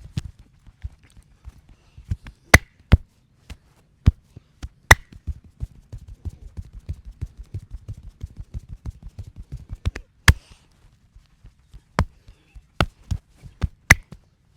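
Hands striking the body in a percussive massage: a rapid patter of soft chopping taps, broken by several loud, sharp slaps.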